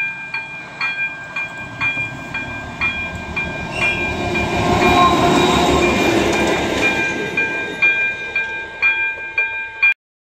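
Level crossing warning bell ringing about twice a second while a ČD Cargo class 742 diesel locomotive with a goods wagon passes over the crossing. The locomotive's engine and wheels are loudest midway, then fade as it moves on, with the bell still ringing.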